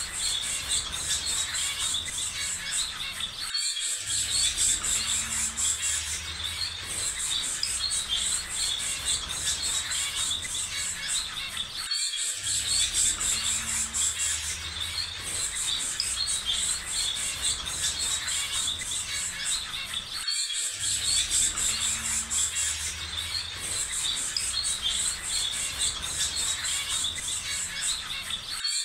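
Looped nature ambience of small birds chirping and insects trilling densely, the same few seconds repeating with a brief dropout about every eight seconds.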